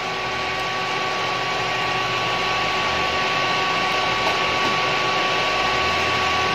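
Steady hissing drone from a DIY power amplifier idling with no music, with a thin steady tone running through it. This is the unwanted 'ugong' (hum) that the owner complains of when the amp stands by.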